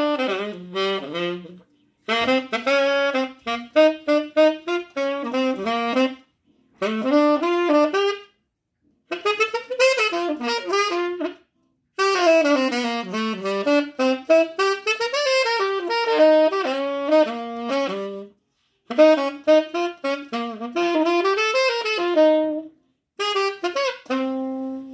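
Recorded music from a CD playing through a Pioneer SA-9900 amplifier and Victor SX-211 speakers: a single melody line played in phrases separated by short pauses, ending on a held note.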